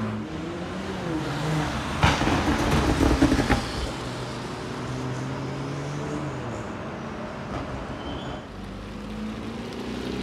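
Car engines running as cars drive off, with a louder burst of engine noise about two seconds in that lasts about a second and a half before settling back to a steady run.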